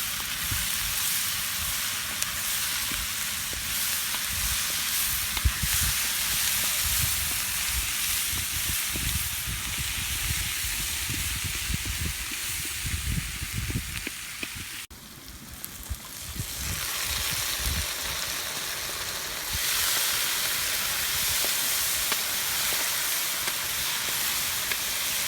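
Food frying in hot oil in a cooking pot: a steady sizzling hiss over a low rumble. It cuts out suddenly about halfway through, then builds back up and grows louder again.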